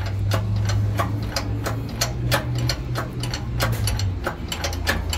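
Shop press pushing a new crankshaft into a Kawasaki Brute Force 750 crankcase half: a steady low hum that stops about four seconds in, with a quick run of sharp metallic clicks, about three a second.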